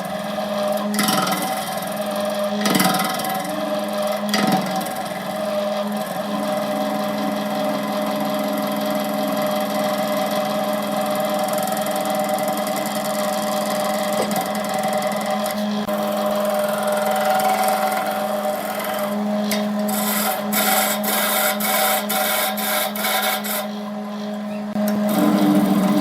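Wood lathe motor running steadily while a tool scrapes against the spinning wood, with a few sharp knocks in the first seconds and a quick run of clicks near the end.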